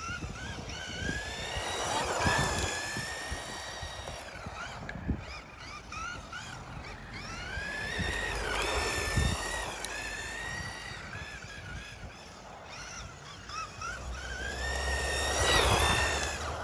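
Electric motor whine of a Kyosho Turbo Optima RC buggy running on a Tamiya Superstock RZ motor as it drives laps on tarmac. The whine rises and falls in pitch as the buggy accelerates and slows for the turns, swelling three times as it comes past, loudest near the end.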